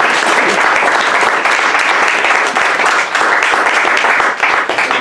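An audience applauding: loud, dense, steady clapping.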